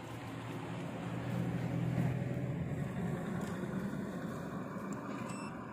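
A motor vehicle's engine passing by: a low hum that grows louder for about two seconds, then slowly fades.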